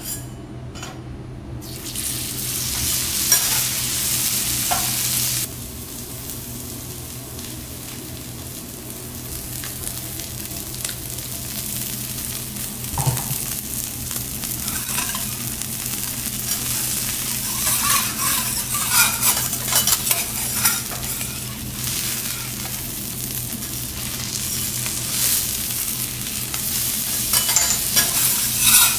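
A strip of ribeye crown steak sizzling on a hot teppanyaki steel griddle. The sizzle starts about two seconds in as the meat goes down. Scattered metal clicks and scrapes from the spatula and fork on the griddle come mostly in the second half.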